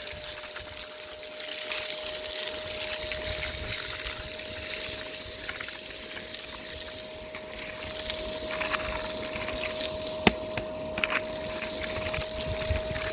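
Miele Complete C2 Tango EcoLine canister vacuum running steadily, its motor giving an even whine over rushing air and the crackle of grit being sucked up off the street. A single sharp click about ten seconds in.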